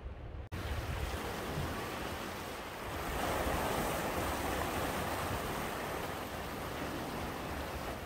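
Sea waves washing and swirling among rocks in a narrow coastal inlet, an even rushing surf that swells louder about three seconds in and then eases. A brief break less than a second in, after which the water is louder.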